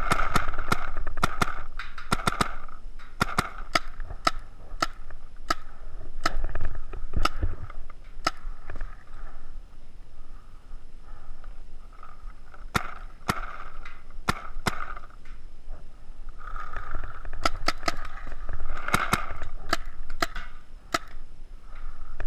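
Paintball markers firing: scattered sharp pops, some coming in quick runs of several a second, others spaced out.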